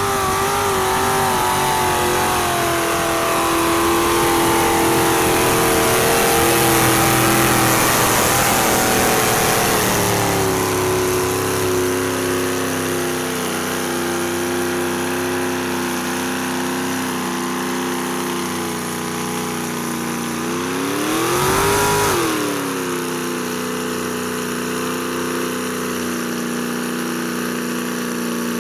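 A mud-bogging truck's engine held at high revs as its tyres spin in deep mud. The pitch steps down about ten seconds in, and a quick rev rises and falls near the end.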